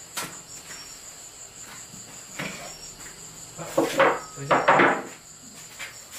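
Insects chirping in a steady high-pitched trill, with a short burst of loud clattering knocks about four to five seconds in.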